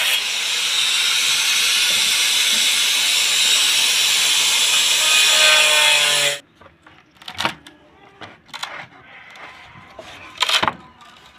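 Electric angle grinder cutting through a dry bamboo pole, a loud steady whine with cutting noise that cuts off about six seconds in. Then a few sharp knocks as the cut bamboo pieces are handled.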